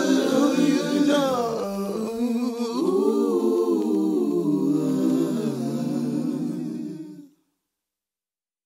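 Closing of an R&B song: layered vocal harmonies sung a cappella after the bass drops out about two seconds in. The voices fade and stop about seven seconds in.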